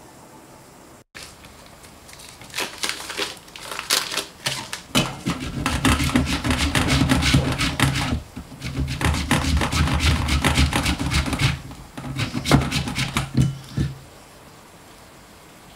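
A block of margarine rasped on a flat metal hand grater, a rapid run of short scraping strokes with two brief pauses, under a low steady hum. It starts a couple of seconds in and stops near the end.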